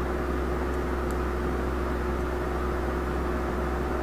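Desktop computer power supply running on a paperclip (green-to-black) jumper test, its fan whirring steadily with a constant hum: the repaired supply is powering on.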